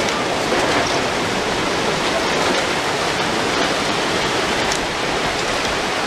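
Tsunami floodwater rushing through a town: a loud, steady, even rush of water.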